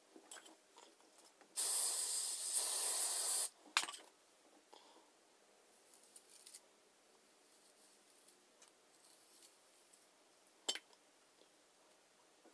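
Aerosol hairspray can sprayed in one steady hiss of about two seconds, followed by a sharp click and later faint handling noises and a second click.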